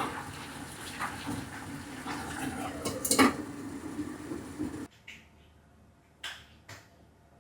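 Kitchen dishes and utensils clattering and clinking over a steady low hum, with one loud clink about three seconds in. The sound stops abruptly near five seconds, then a few light clicks follow.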